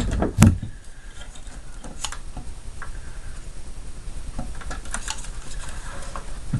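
Two loud knocks at the start, then light clicking, tapping and scraping as parts of a mini fridge are handled during disassembly.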